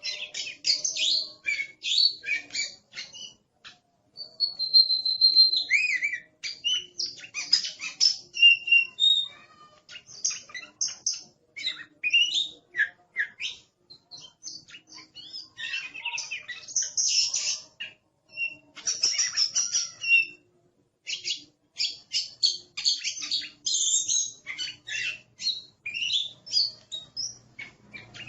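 Oriental magpie-robin singing a noisy, varied song of rapid chattering notes, sliding whistles and harsh calls. It comes in bursts of phrases broken by brief pauses.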